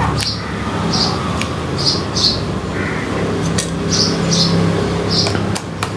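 Small bird chirping over and over, short high chirps about twice a second, with a few sharp clicks and a low steady hum underneath.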